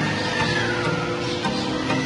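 Music playing, with sustained tones and gliding melodic lines.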